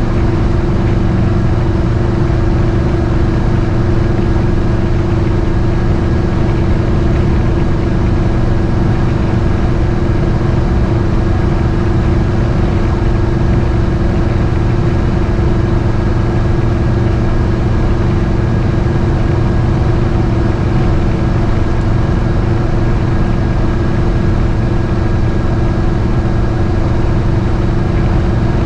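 Cabin noise of a GMC motorhome cruising at highway speed while towing a boat trailer: a loud, steady drone of engine, drivetrain and road rumble with an even hum, unchanging throughout.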